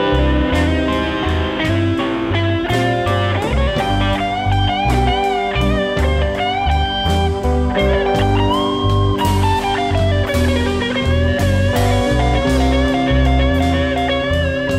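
Live blues band playing an instrumental passage: an electric guitar lead with notes bent up and down over a steady bass line and drums.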